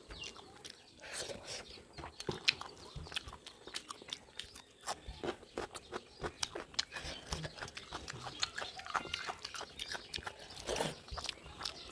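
Close-up eating noises of people chewing rice khichdi eaten by hand: wet lip smacks and small mouth clicks in a quick, irregular run.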